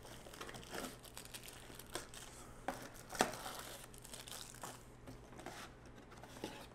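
Thin plastic bags crinkling and rustling as small packed items are pulled out of a cardboard box and set down on a wooden table, with light taps and one sharper tick about three seconds in; faint.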